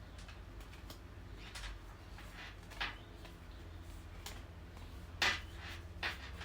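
Tarot cards being handled and laid down one after another: several brief papery slaps and slides of card, the loudest a little past five seconds in, over a low steady hum.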